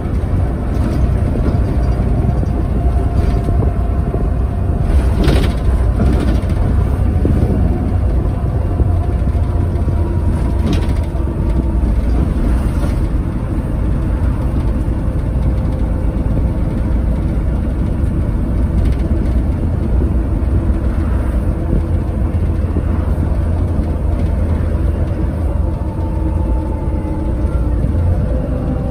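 Inside a Mercedes-Benz Citaro bus on the move: its diesel engine and ZF Ecomat automatic gearbox run under a steady heavy road rumble, with the engine note rising and falling. A couple of brief rattles come about five and eleven seconds in.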